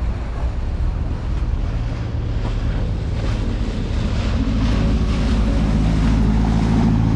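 Wind buffeting the microphone over rushing water as a wooden motor launch passes close by, its wake splashing. About halfway through, the launch's engine drone comes in and grows louder.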